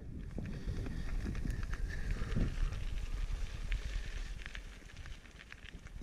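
Mountain bike ridden down a rocky singletrack: scattered clicks and rattles from the tyres on stones and from the bike, over wind rumbling on the camera's microphone.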